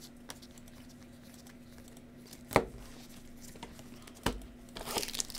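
Trading cards and packs handled by gloved hands: a light click, then two sharp knocks a couple of seconds apart, and near the end the crinkle of a foil card-pack wrapper being handled, over a faint steady hum.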